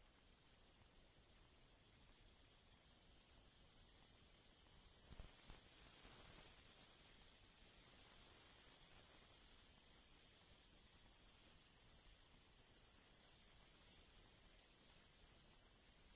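Compressed-air hopper spray gun hissing steadily as it sprays acrylic plaster onto a wall, growing louder over the first five seconds or so.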